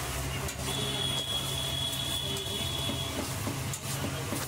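A steady low hum, with a thin high tone holding for a couple of seconds, and a steel spatula scraping on a flat iron tawa near the end as an egg-coated paratha is flipped.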